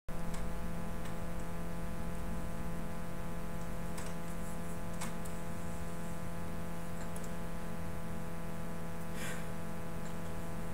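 Steady low electrical hum, with a few faint clicks scattered through and a short soft rustle about nine seconds in.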